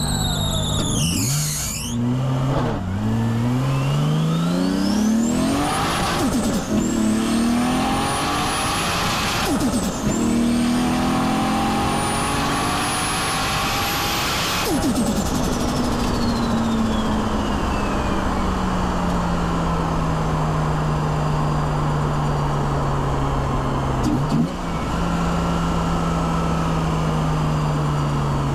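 Nissan Skyline R33's turbocharged RB25DET straight-six pulling through the gears: engine pitch climbs in three runs with short breaks at the shifts, and a high turbo whistle rises along with it. About halfway the throttle is lifted with a sharp burst of turbo flutter, a sign of no blow-off valve. The whistle then winds down quickly while the engine slowly drops in pitch, with a short blip of the throttle near the end.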